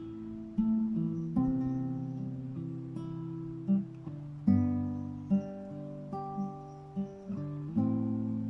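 Slow music on a plucked string instrument: chords are struck every second or two and left to ring and fade.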